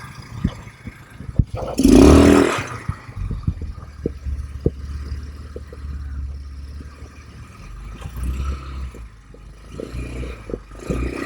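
ATV engine running at a steady low pitch over a rough trail, with frequent knocks and clattering from the bumps, and a loud burst of revving about two seconds in.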